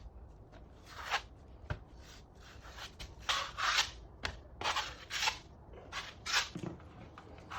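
A hand tool scraping across a drywall repair patch in about a dozen short, uneven strokes, with one sharp click near the start.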